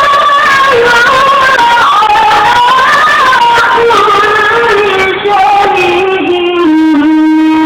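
A solo voice chanting Quranic recitation (tilawah) in a melismatic style, gliding through long ornamented phrases. It settles near the end on a long held low note with a slight vibrato.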